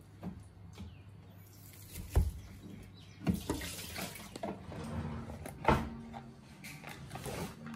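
Chef's knife cutting through a block of luncheon meat on a wooden chopping board, the blade knocking sharply on the board three times.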